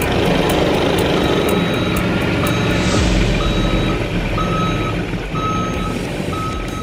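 Forklift reversing alarm beeping about once a second over its running engine; the beeping starts about a second in.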